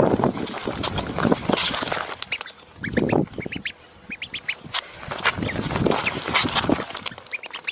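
Duckling peeping again and again in short, high, rising peeps. Louder low rustling noise runs under the first two seconds.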